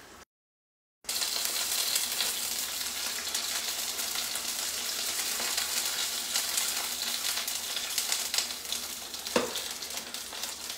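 Garlic and chilli pepper frying in hot olive oil in a pan: a steady, dense sizzle that cuts in about a second in after a moment of silence. There is one sharp knock near the end.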